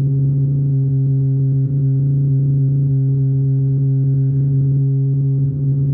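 Homemade breadboard noise-maker synth, built from 555-timer oscillators, holding a steady low electronic drone with a stack of overtones and a fast flutter underneath.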